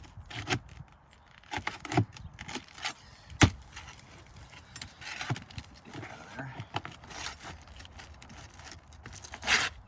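A metal tool working a roofing nail out from under an asphalt shingle: scattered clinks, taps and scrapes, with one sharp metallic click about three and a half seconds in and a longer scrape near the end.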